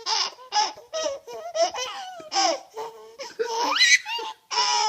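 A five-month-old baby laughing in a string of short, breathy bursts, with a high rising squeal near the end.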